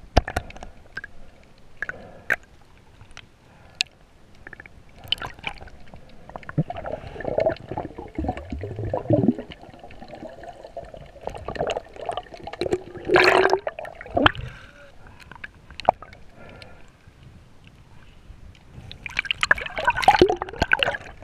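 Water heard through a submerged camera: gurgling and sloshing with scattered sharp clicks and knocks, the noise swelling unevenly and growing louder near the end as the camera comes up near the surface.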